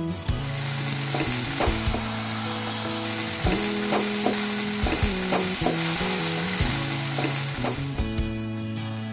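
Oil sizzling in a nonstick frying pan as marinated mutton is tipped in and onions are stirred and fried with a spatula. The sizzle starts just after the beginning and stops about eight seconds in, over background music.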